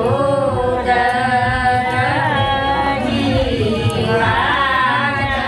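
Singing with music: a song of long, held, wavering notes.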